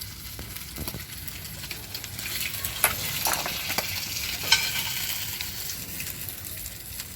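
Masala-coated fish sizzling as it fries in oil on a tawa, a steady hiss broken by a few sharp clinks and scrapes, the loudest about three and four and a half seconds in.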